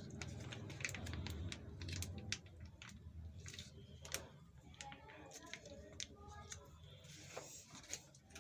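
Light clicks and taps of a utensil against a bowl as mayonnaise is added to fresh cream.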